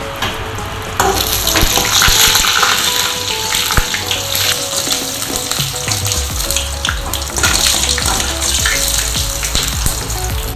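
Crisp fried snack tubes crackling and crunching, a dense run of small sharp cracks, over background music.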